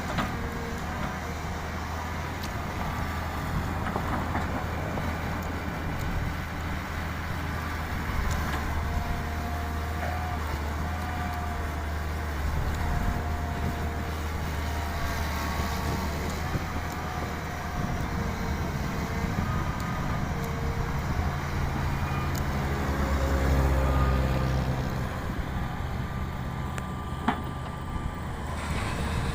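Heavy diesel machinery running steadily under load, with faint whining tones that come and go over the engine drone. The engine swells louder about four fifths of the way through, and there is a single sharp click near the end.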